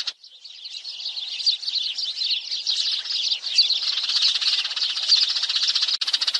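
A flock of sparrows chirping together, many quick overlapping chirps, with a fast rattling chatter joining in about halfway through. It is a sparrow flock call used as a lure for trapping sparrows.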